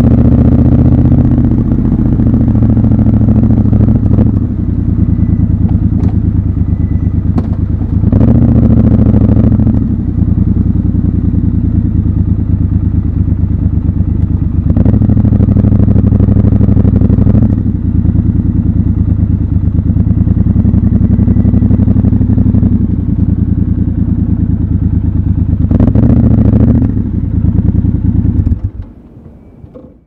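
Triumph Scrambler 1200 XC's 1200 cc parallel-twin engine running as the motorcycle is ridden slowly, picking up under throttle a few times. The engine sound drops away near the end.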